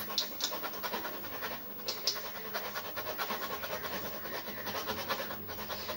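Hot oil sizzling and crackling in a steel kadai as a pua pitha (jaggery fritter) deep-fries, held in a wire spider strainer. A few sharper ticks stand out in the first two seconds.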